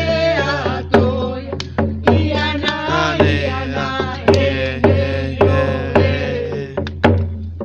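A ceremonial fire song chanted in vocables over a steady drumbeat of about one strike a second. The singing stops near the end and the drum keeps beating.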